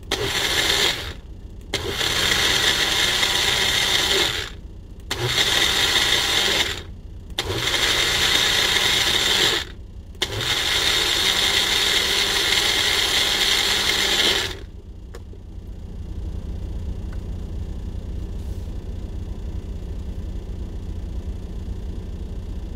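Single-serve push-down blender whipping a coffee mixture until it thickens. It runs in five bursts of two to four seconds with short pauses between, and stops about fourteen seconds in. A low steady rumble runs underneath and carries on alone after the blender stops.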